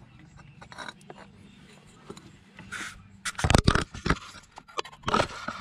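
Hands working in an engine bay: small clicks and taps as a coolant neck is fitted, then loud scraping rubs about three and a half seconds in and again near five seconds.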